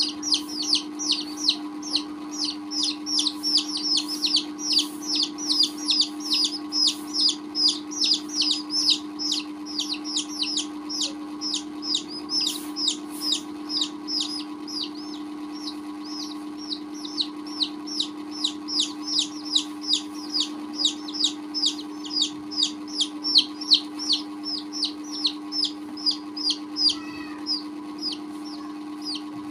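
Baby chicks peeping continuously: a rapid run of high, falling peeps, about three a second, over a steady low hum.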